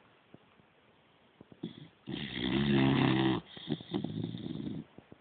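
Shar Pei dog snoring while asleep: about two seconds in, one loud, pitched snore, followed by a softer, breathier sound before it goes quiet again.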